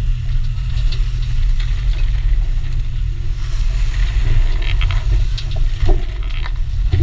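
Small fishing boat under way in a rough sea: a deep, steady rumble from the engine, with scattered light clicks and clatter of whelk shells being sorted on deck, busier in the second half.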